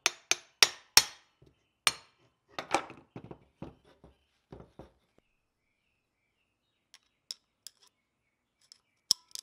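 A hammer tapping on the metal housing of a 22RE idle air control valve mounted on its throttle body: five sharp knocks in the first two seconds. Then lighter clicks and rattles of metal parts as the valve is worked loose, and a few faint ticks near the end.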